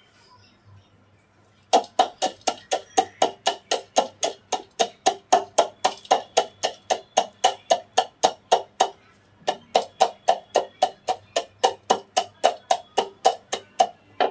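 Wooden pestle pounding naphthalene balls in a wooden mortar to crush them into powder: rapid, even strikes about three to four a second. The strikes start about two seconds in, break off briefly about two-thirds of the way through, then resume.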